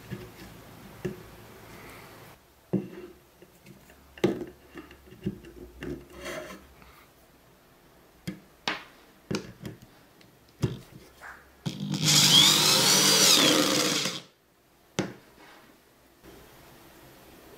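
A cordless screwdriver or drill driving a wood screw into a wooden beam for about two seconds, its pitch wavering as the screw bites, ending with the screw head seated flush. Before it come a dozen light knocks and taps of the screw and tool being handled against the wood.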